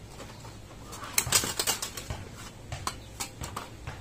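A hand wire cutter-stripper snipping and stripping thin electrical wire: a run of sharp clicks and snaps, bunched together about a second in and then coming one at a time.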